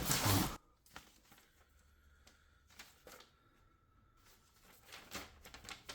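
A brief rustle of handling at the start, then near silence with a few faint clicks and rustles of parts or packaging being handled.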